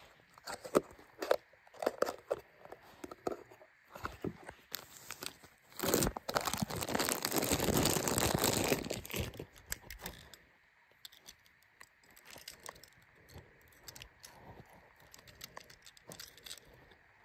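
Thin clear plastic bag crinkling and crackling as a small die-cast toy car is worked out of it, loudest for a few seconds about six seconds in. After about ten seconds only faint clicks are heard as the bare metal car is handled.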